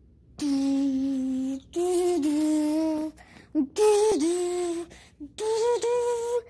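A voice singing four long held notes, each a little higher than the last, with short breaks between them.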